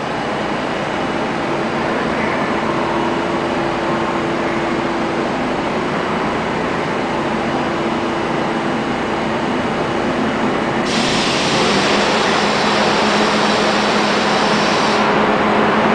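R42 subway train standing at an underground platform, its onboard equipment running with a steady hum. About eleven seconds in, a loud hiss starts suddenly and cuts off four seconds later.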